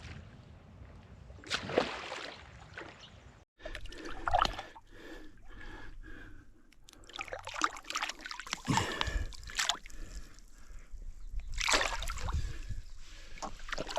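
Water splashing and sloshing in shallow water as a released barramundi is held and moves in the water, in irregular splashes with a few louder ones.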